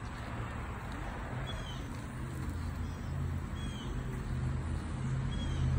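A low, steady motor hum that slowly grows louder, with a bird giving three short, high chirps about two seconds apart.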